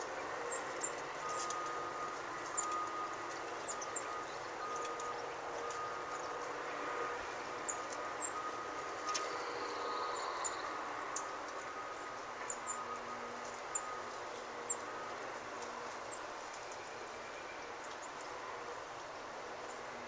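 Distant heavy earthmoving machinery, a dump truck and a bulldozer, running with a steady drone while the truck tips its load, with small birds chirping many times.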